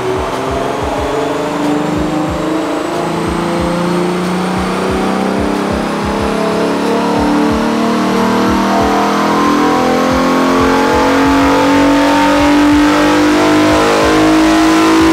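Lexus GS350's 3.5-litre V6, breathing through an Injen short ram intake, under load on a chassis dyno, its note climbing slowly and steadily in pitch through one long pull. A thin whine rises along with it.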